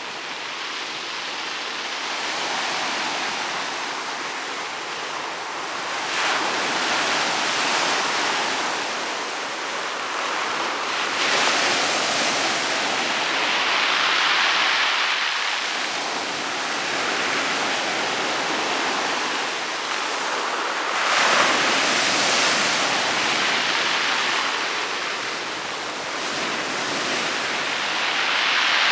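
Rough sea waves breaking on a pebble beach: a steady rush of surf that swells with each incoming wave every few seconds.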